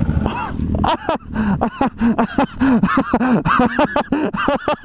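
A person's voice giving a rapid string of short, wordless cries, each rising and falling in pitch, several a second, just after the motorcycle has gone down on the slick concrete.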